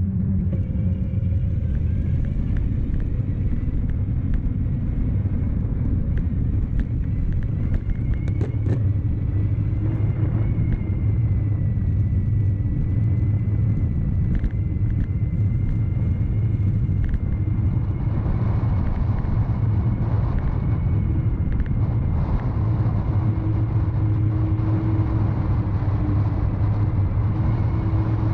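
CYC X1 Stealth Gen3 mid-drive e-bike motor running under way: a thin, steady high whine that wavers slightly in pitch, over a constant low rumble.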